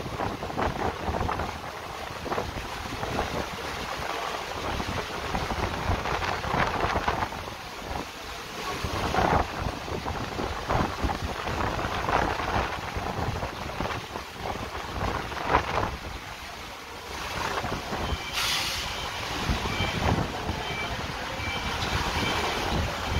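Heavy rain and strong gusting wind of a thunderstorm, the gusts buffeting the microphone and rising and falling every second or two.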